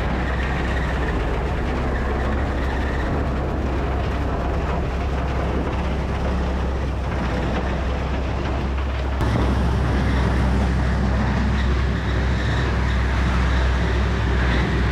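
Tractor-driven bale processor (bale buster) shredding a wrapped hay bale: a steady mechanical noise over a low engine drone, getting a little louder about nine seconds in.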